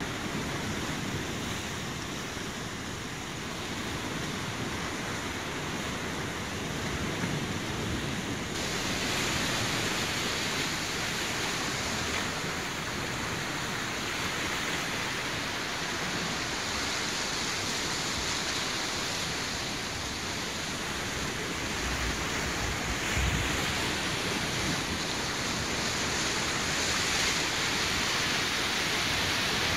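Steady rushing noise of wind and water outdoors, growing a little brighter about eight seconds in, with low gusts of wind buffeting the microphone about two-thirds of the way through.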